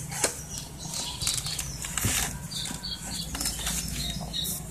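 Yasuka YSK2000 four-stroke gasoline generator running steadily on test after its capacitor has been replaced, with short high chirps and a few sharp clicks over the engine.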